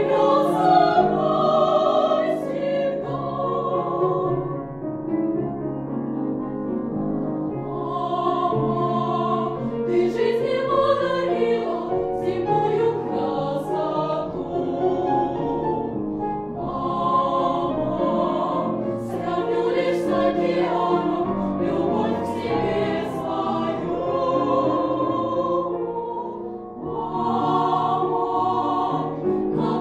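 A girls' vocal ensemble of nine young singers singing a Russian song in several-part harmony, with long held notes in slow phrases.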